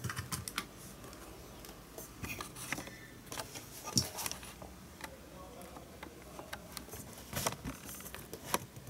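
Handling noise: irregular light clicks, taps and rustles as a document camera and its cables are moved about on a tabletop, with a sharper knock about four seconds in.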